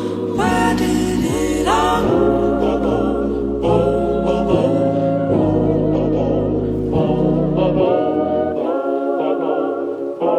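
Background music with sung vocals held on long notes over a bass line; the bass drops out near the end.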